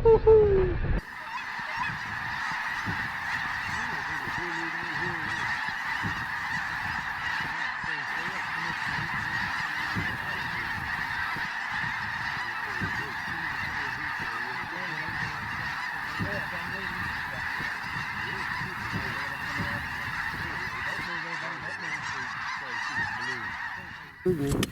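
A large flock of snow geese calling together in a dense, unbroken clamor of honks. It starts abruptly about a second in and cuts off just before the end.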